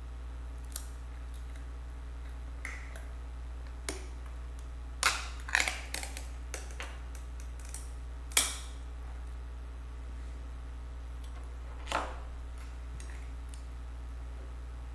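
Scattered clicks, taps and short rustles of small objects being handled on a desk, loudest around five to six seconds in and again at about eight and a half seconds, over a steady low hum.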